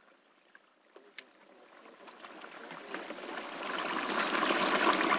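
Potatoes deep-frying in a large pot of hot oil, a dense crackling sizzle that fades in from near silence about a second in and grows steadily louder.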